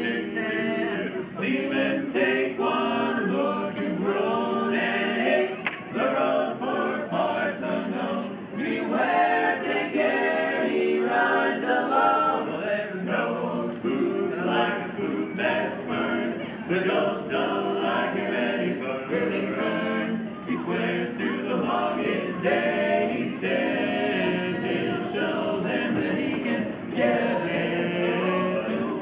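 Barbershop quartet of men singing a cappella in close harmony, with no instruments.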